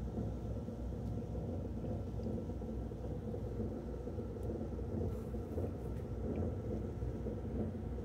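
Hydrotherapy underwater treadmill running: a steady low rumble of its motor and moving water, heard through the water, with a faint steady whine above it.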